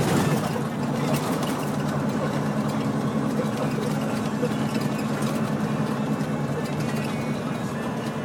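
Heavy diesel truck engine running steadily under way, a low drone with road noise.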